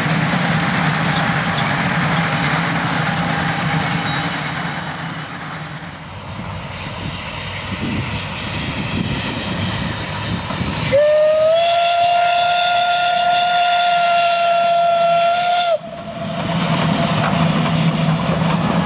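Steam locomotive and its train of carriages running past, then one long steam whistle blast about eleven seconds in. The whistle holds a single steady note for about five seconds and cuts off abruptly, after which the train's running noise returns.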